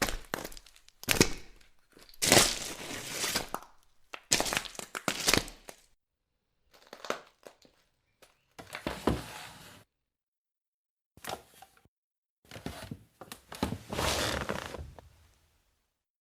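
Crackling, crunching noise with sharp knocks, coming in about eight separate spells of a second or so, with dead silence between them.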